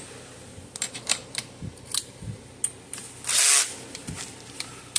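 Small clicks and taps of wires and parts being handled, with one short burst of a power screwdriver a little past the middle, used to loosen a screw.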